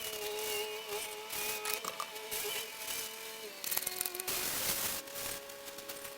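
Hand-pumped garden sprayer hissing in bursts as degreaser is sprayed onto a car. Underneath runs a steady pitched whine that shifts pitch twice.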